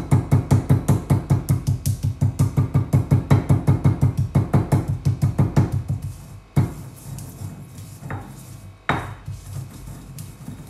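Cumin seeds being pounded in a marble mortar and pestle: quick, even strikes about five a second for some six seconds, then stopping, with a few single knocks as the pestle is worked round the bowl.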